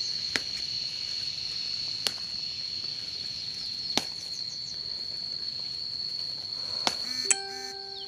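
A few sharp snaps of chili pepper stems being broken off by hand, about every two seconds, over a steady high-pitched insect drone. A short low hum comes near the end.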